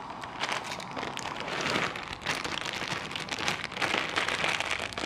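Small pot of water boiling on a camping stove, a dense crackling hiss, while a plastic bag of dry pasta crinkles as the pasta is poured in.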